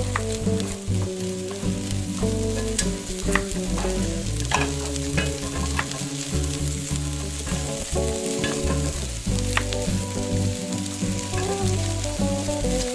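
Miniature spring rolls deep-frying in a tiny ceramic pot of hot oil: a steady sizzle with scattered sharp pops and crackles. Background music plays underneath.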